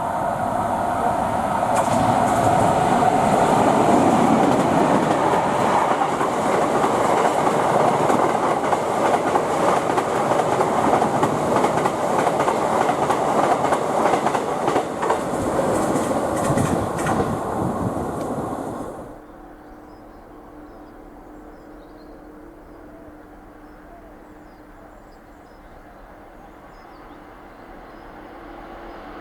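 Freight train passing close at speed, its wagons rattling with many quick knocks over the track. About two-thirds of the way through the sound cuts off abruptly to a quiet steady hum, which slowly grows louder near the end.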